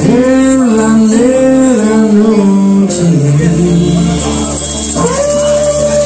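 A live band playing: electric guitars, bass guitar and drums, with a sung melody over them in long notes that bend in pitch.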